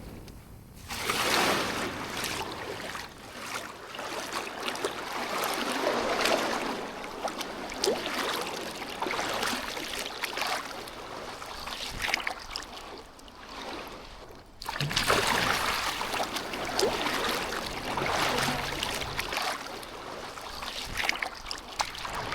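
Sea waves washing onto a sandy beach, swelling and fading every few seconds.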